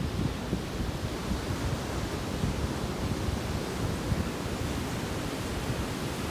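Sea surf washing steadily, with wind buffeting the microphone in uneven low gusts.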